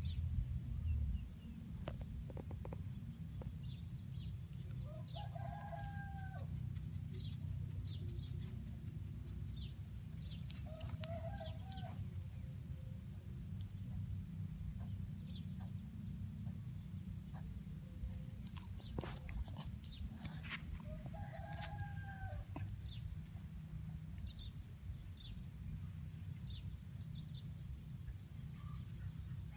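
A rooster crowing three times, several seconds apart, over a steady low rumble, with small birds chirping throughout.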